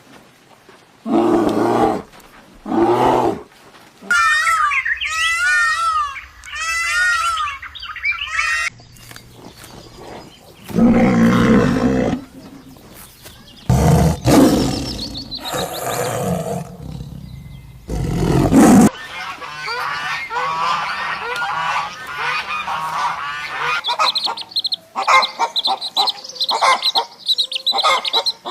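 A run of different animals' calls, one short clip after another, cut abruptly between them.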